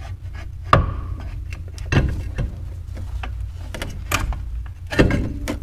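Brembo six-piston brake caliper being worked off the brake rotor by hand: several sharp metal knocks and clunks over a steady low hum.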